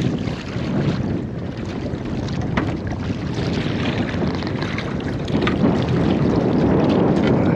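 Wind buffeting the microphone over sea water sloshing against a small boat, with a few light clicks from handling.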